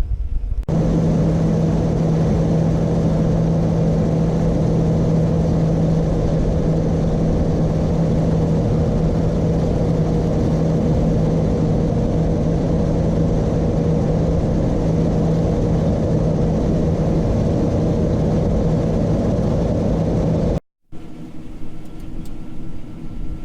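Large diesel farm harvest machinery running steadily, a constant loud hum with a low steady tone. Near the end it cuts abruptly to a different, quieter engine sound.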